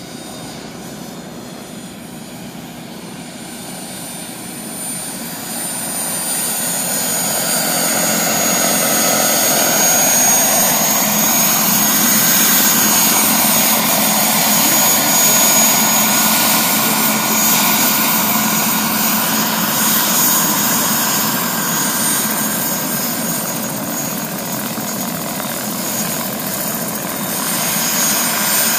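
Scale radio-controlled model helicopter flying, a steady high-pitched whine over the rotor noise. It grows louder over the first several seconds as it comes closer, eases off a little later on, and swells again near the end.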